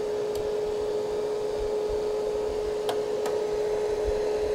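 Dynarock Party Scan DMX scanner light switched on and running, giving a steady hum with a few faint ticks.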